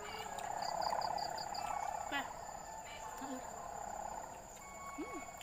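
Insects trilling steadily in a fast pulsing chorus, swelling a little about a second in, with a quick run of about six high chirps over it.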